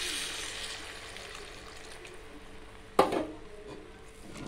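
Tamarind water poured from a cup into a pan of simmering spiced curry, the splashing pour fading away over the first second or so and leaving a low bubbling simmer. A single sharp knock sounds about three seconds in.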